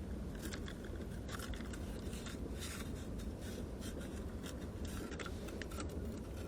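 Irregular scraping and rustling clicks over a steady low rumble.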